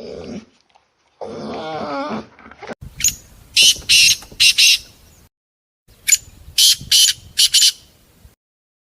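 A string of animal calls: first a short call with a wavering pitch, then two groups of sharp, high-pitched calls repeated several times, with short silences between.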